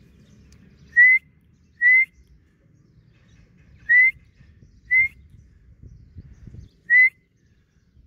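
A person whistling five short, slightly rising notes, in pairs and singles, to coax the francolins to call.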